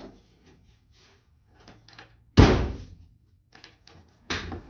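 Car trunk lid slammed shut with a loud thud about two and a half seconds in, then a second thud near the end, with light clicks of the latch being worked in between; it is a test of whether the latch closes and catches.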